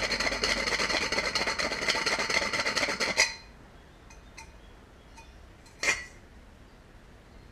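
Fine rat-tail file rasping in quick light strokes around the bulb hole of a brass headlight reflector shell, rounding the hole out, until it stops abruptly about three seconds in. After that, a few faint ticks and one sharp click near the middle.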